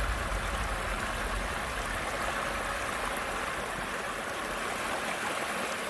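River water flowing steadily, an even rushing.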